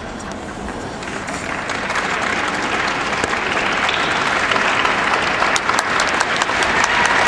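Audience applauding, building up from about a second in and getting louder, with single sharp claps standing out over the last couple of seconds.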